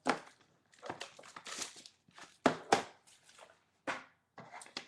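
Cardboard and plastic wrapper crinkling and tearing as a sealed box of trading cards is opened by hand, with a few sharp snaps.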